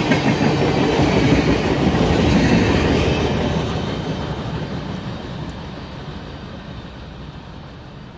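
Tail end of a freight train, tank cars and a centerbeam lumber car, rolling past on steel rails with a steady wheel rumble and clatter. The noise fades away steadily from about three seconds in as the last car moves off.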